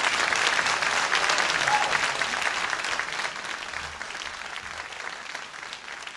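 Audience applause: many hands clapping densely, loud at first and then dying down gradually from about halfway through.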